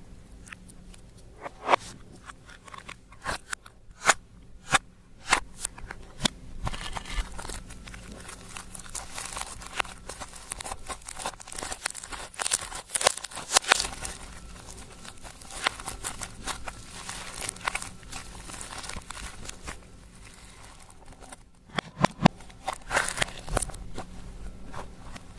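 Slime being kneaded and pressed by hand, giving sticky clicks and crackling pops. A few separate sharp clicks come first, then dense crackling, and another cluster of loud clicks comes near the end.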